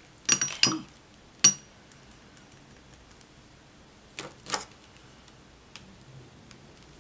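Paintbrush clinking against a ceramic palette plate while mixing watercolour: a quick cluster of clinks in the first second and another about a second and a half in. About four seconds in, a second pair of knocks comes as the brush is set down and metal tweezers are picked up.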